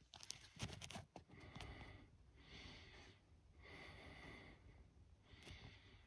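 Faint, soft breathing close to the microphone, a breath roughly every second and a half, with a few light handling clicks in the first second.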